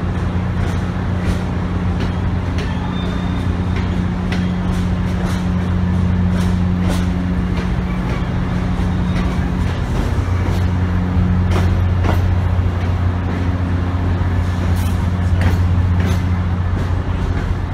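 Amtrak Northeast Regional passenger cars rolling past at gathering speed, with a steady low hum and the wheels clicking sharply over the rails again and again.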